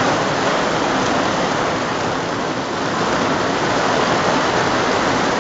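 Steady rain falling outside, heard from inside a tent.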